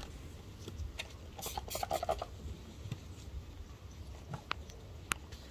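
Light scattered ticks and rustling from baby vervet monkeys scrambling over branches, with a short burst of scratchy sounds about two seconds in.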